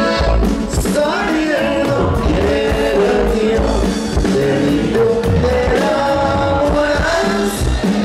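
Live norteño band playing: men singing together at one microphone over strummed guitar, bass and a steady drum beat.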